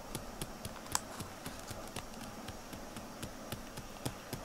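Typing on a computer keyboard: irregular light key clicks, a few a second, with one sharper click about a second in.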